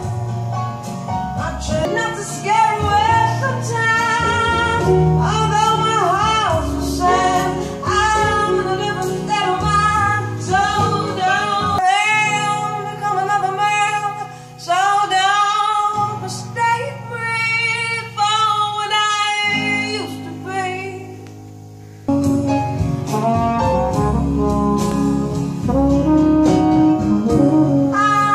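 A song with singing and instruments played through Linn Katan bookshelf speakers driven by a Goldmund Mimesis SR amplifier, picked up in the room by a phone's microphone. The music drops away briefly about three-quarters of the way through, then comes back in at full level.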